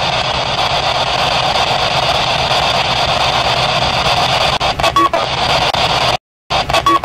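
Ghost box sweeping through radio stations: a steady hiss of static, with brief chopped fragments of radio sound about five seconds in. The sound cuts out for a moment and the same fragment plays again. The investigators take the fragment for a girl's voice answering with her name.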